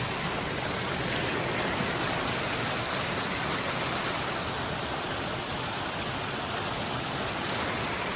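Waterfall and creek water rushing over rocks: a steady, even roar of falling water.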